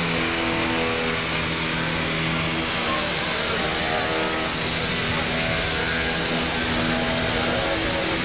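Steady loud hiss of a busy exhibition hall, with a few low held tones underneath.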